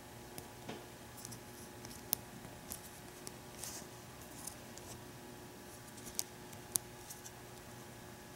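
Light plastic clicks and taps from a Nendoroid figure being handled and posed, its small parts knocking and shifting under the fingers. The clicks are irregular, with the sharpest about 2 seconds in and twice more near the end, over a faint steady hum.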